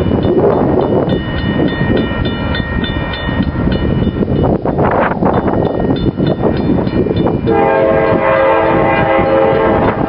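Norfolk Southern diesel locomotive's air horn sounding a loud chord of several notes, starting about three-quarters of the way in and held to near the end. Heavy wind buffets the microphone throughout, and fainter high-pitched tones sound in the first few seconds.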